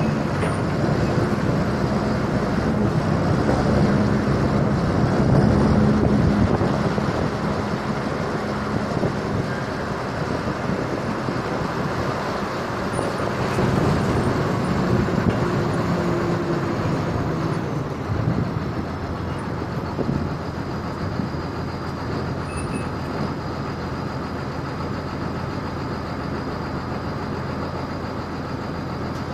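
Grain truck on the road, its engine running steadily under road and rattle noise; the engine sound swells a little around five seconds in, then settles.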